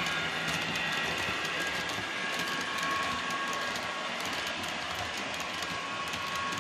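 H0-scale model freight train of car-transporter wagons rolling along the track behind an Lsmodels SNCB class 13 locomotive, the wheels making many small clicks over a steady whine.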